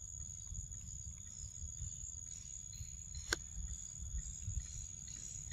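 Insects trilling steadily at one high pitch over a low rumble, with a single sharp click a little past the middle.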